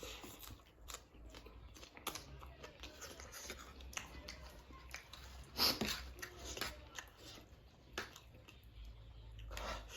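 A person chewing and eating spicy instant noodles, with wet mouth clicks and smacks throughout. A louder noisy sound comes a little past halfway.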